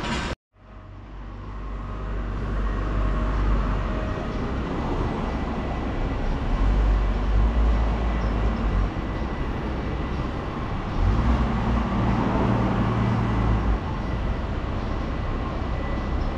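Steady low rumble and hum of a large aircraft maintenance hangar, swelling louder twice. The sound drops out briefly just after the start and fades back in.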